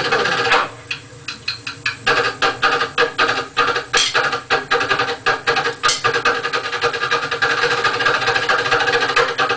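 Recorded marching drumline music: fast, rhythmic snare-drum strokes. The playing drops to a softer passage about a second in, then returns to full volume near two seconds in.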